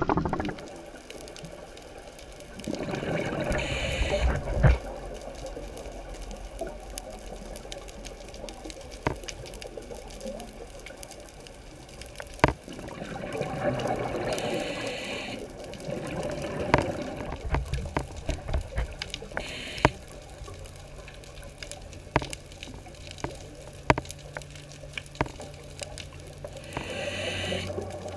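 Underwater audio of a scuba diver's exhaled regulator bubbles rushing out in three bursts about every eleven seconds. Between the breaths there are scattered sharp clicks, and a low steady hum starts about halfway through.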